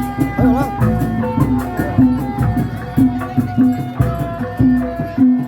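Traditional Sundanese kuda lumping music: hand drums beat a steady rhythm, about two strokes a second, under a held melody line.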